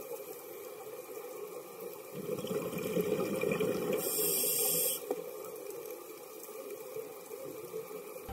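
Underwater water noise: a steady watery rush that swells from about two seconds in, with a short burst of hissing bubbles about four seconds in.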